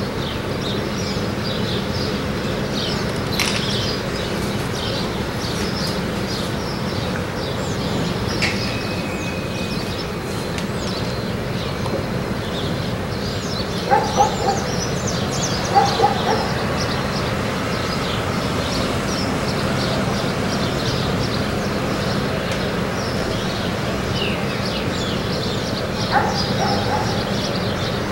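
Many birds chirping over a steady low hum. A few short, louder calls stand out about halfway through and again near the end.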